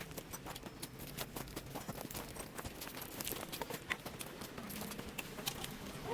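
Footsteps on rocky ground: an irregular run of short crunches and clicks from loose stones underfoot.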